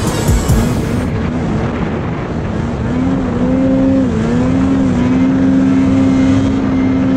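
Snowmobile engine running hard as the sled climbs a snowy slope, its pitch rising and dipping several times with the throttle, then holding steady from about five seconds in.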